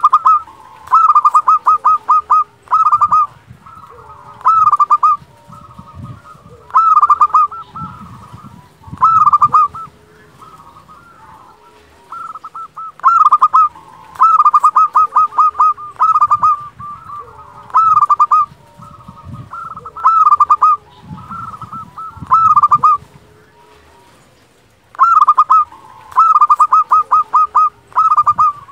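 Zebra dove (perkutut lokal) singing its flute-like cooing song: loud phrases of quick staccato notes, repeated every second or two with a few longer pauses, and softer notes in between.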